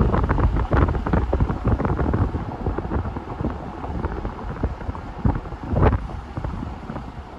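Wind buffeting the microphone in uneven gusts, a rumbling rush that eases off towards the end with one stronger gust about six seconds in.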